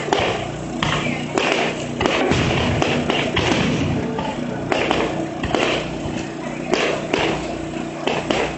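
Aerial fireworks going off in quick succession: repeated booms with crackling between them.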